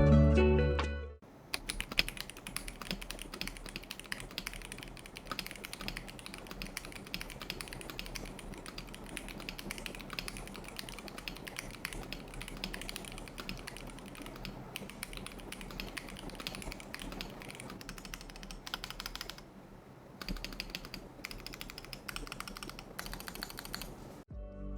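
Typing on an ROG Azoth 75% mechanical keyboard with ROG NX switches: a rapid, uneven run of key clacks, with a short pause about twenty seconds in. Background music fades out about a second in and comes back at the very end.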